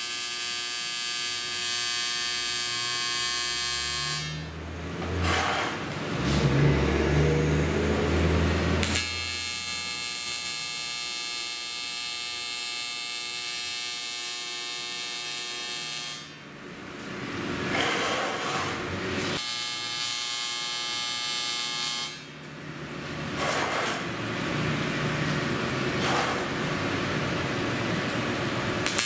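AC TIG welding arc on aluminium, a steady electric buzz. The buzz drops out three times for a few seconds, where a rougher, lower noise takes over, then the arc buzz returns.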